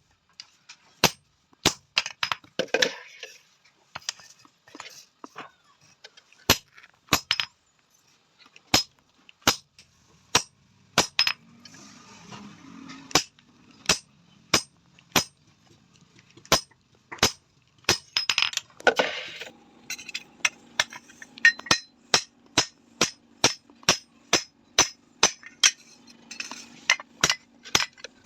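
Hand hammer striking an iron tawa being forged, a steady run of sharp ringing blows at about one to two a second, coming faster in the second half. A faint low hum runs under the blows near the end.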